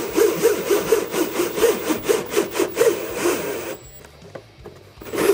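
Cordless drill driving a hole saw through a plastic dash panel: a rhythmic rasping grind as the teeth bite. It stops about four seconds in and starts again briefly near the end.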